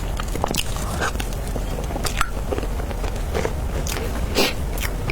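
Close-up eating sounds of a person chewing dragon fruit cake: irregular mouth clicks and smacks, the loudest about four seconds in, over a low steady hum.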